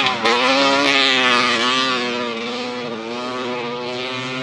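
Twin-cylinder two-stroke engine of a large-scale RC Baja buggy revving hard, its pitch dropping and climbing again and again with the throttle. It is a little quieter after about two seconds.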